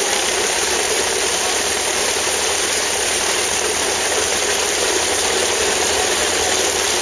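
Antique belt-driven grain threshing machine running during threshing: a loud, steady mechanical rattle and whir.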